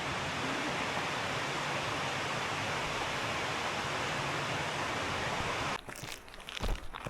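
A steady rushing noise, then an abrupt cut near the end to a hiker's footsteps on a trail.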